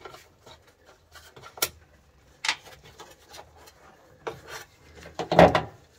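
Wiring and plastic relay parts being handled and pulled loose: scattered clicks and rubbing scrapes, with two sharp clicks early and a louder scrape about five seconds in.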